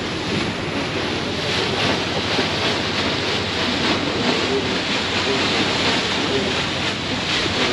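Steady rush of wind on the microphone and water churning along the hull of a moving tour boat.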